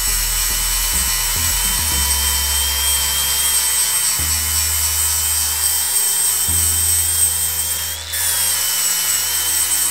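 Angle grinder with a flap disc grinding down welds on a steel three-wheeler frame: a steady, slightly wavering high whine. About eight seconds in it briefly eases off and its pitch rises before grinding resumes. Background music with a bass line plays underneath.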